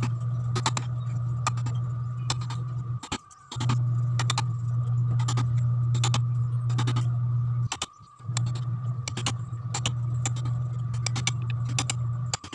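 Mallet striking a wood chisel as it cuts a channel into a wooden buttstock: short sharp taps, roughly two a second at an uneven pace. Under them runs a steady low hum that drops out briefly twice.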